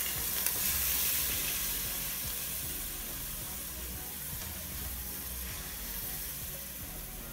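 Beef chunks sizzling in hot olive oil in the bottom of a pressure cooker pot as they go in. The sizzle is strongest at first and slowly dies down, with a small click about half a second in.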